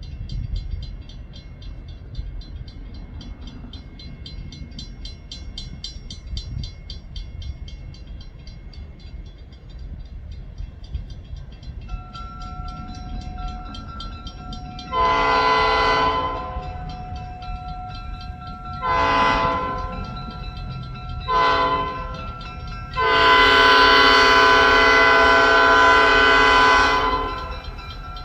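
Nathan P5 five-chime train horn sounding the grade-crossing signal: long, long, short, then one long blast held for about four seconds near the end. Under it a bell rings steadily.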